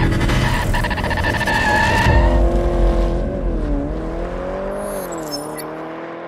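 Car sound effect. Tyres squeal over a heavy engine rumble for about the first two seconds, then an engine note rises and dips in pitch and gradually fades away.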